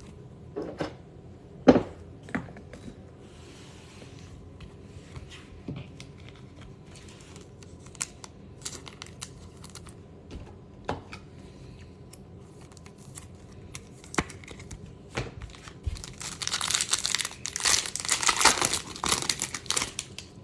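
Scattered light clicks and taps of cards being handled, then, about four seconds before the end, a loud stretch of crinkling and tearing: a trading card pack's wrapper being ripped open.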